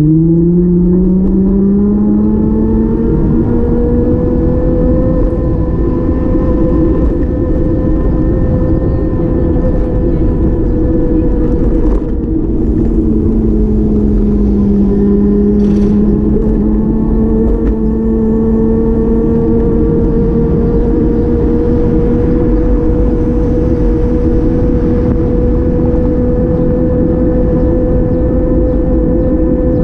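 A vehicle engine running, rising in pitch over the first couple of seconds as it speeds up, then holding a steady pitch with a slight, smooth dip and recovery about halfway through.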